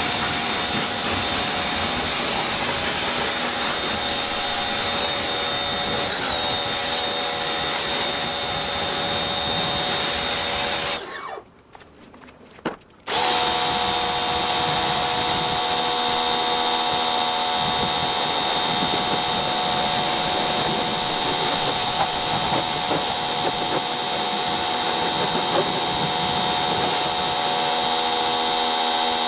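Gerni electric pressure washer running: a steady motor whine over the hiss of the water jet. It cuts out for about two seconds, eleven seconds in, then starts again.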